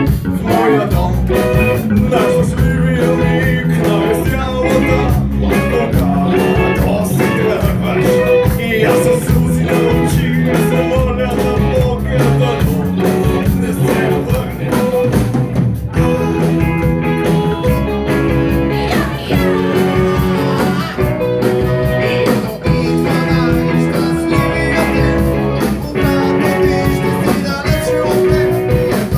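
Live rock band playing: two electric guitars, an electric bass and a drum kit, amplified on a small stage.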